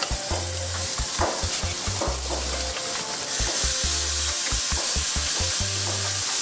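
Redfish fillets, skin and scales left on, sizzling steadily on a hot grill as they are laid on with tongs, with boudin links cooking beside them. Background music with a repeating bass line plays over it.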